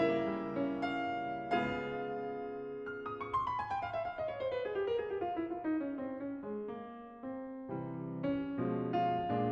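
Piano playing: held chords, then a quick run of notes falling in pitch from about three seconds in, then chords again.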